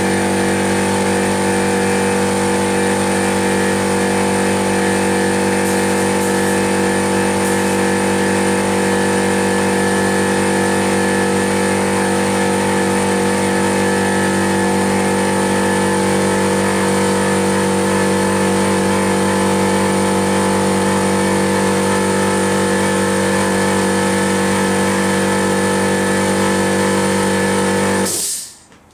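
Air compressor motor running steadily at full load with a constant hum and hiss while it feeds a paint spray gun spraying 2K acrylic paint; the sound cuts off suddenly near the end.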